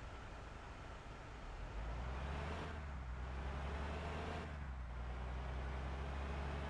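Bus engine running with road noise, a steady low drone that comes up louder about two seconds in.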